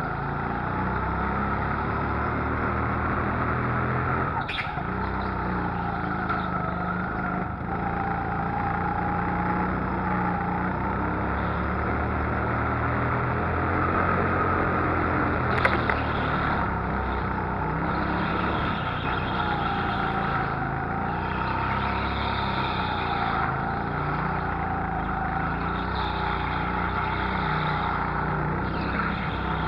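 Indoor go-kart heard from on board, running at speed, its pitch rising and falling continuously as it goes through the corners. Two short sharp knocks stand out, about four and a half seconds in and again about fifteen and a half seconds in.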